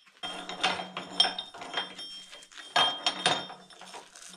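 Ratchet clicking in several short, irregular runs, with light metallic clinks between them.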